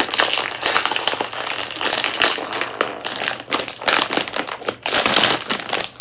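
Crinkly plastic snack bag of shrimp chips being handled and opened, with irregular crackling and rustling of the wrapper.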